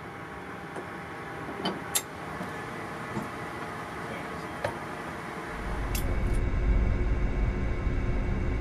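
Steady machinery hum inside a submarine compartment, broken by a few sharp clicks. About five and a half seconds in, a deep, louder rumble comes in and holds.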